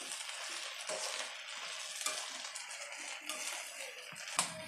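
Drumstick (moringa) leaves and onions being stirred in hot oil in a metal kadai: a steady sizzle with scattered scrapes and clicks of the spatula against the pan.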